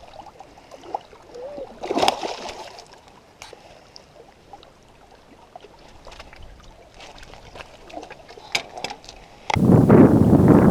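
Small water sounds and scattered knocks and clicks in a rowboat, with a louder knock about two seconds in and a few quick ones near the end. About a second before the end it cuts suddenly to loud, steady wind buffeting the microphone.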